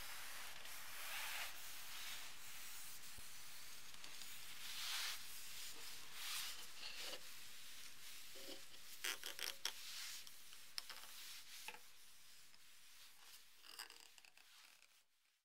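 Cotton pad in a gloved hand rubbing finish into a wooden axe handle: soft, repeated swishing strokes, with a few short clicks and knocks around the middle. The sound fades out near the end.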